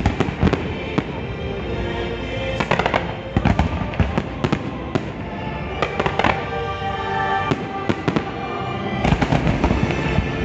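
Aerial firework shells bursting in a rapid volley of sharp bangs and crackles, thickest near the end, over the show's loud orchestral music score.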